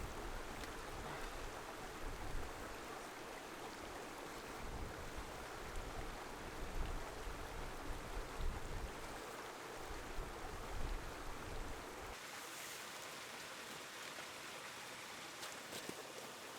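Strong wind buffeting the microphone in uneven low gusts over a steady rushing noise. About twelve seconds in, the gusting cuts off abruptly and only an even hiss remains.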